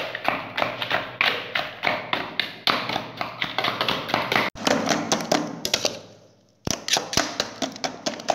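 Metal spoon knocking quickly and repeatedly against the inside of a stainless steel tumbler, mashing bananas, sugar and ice together. The taps come several a second, break off briefly about six seconds in, then resume.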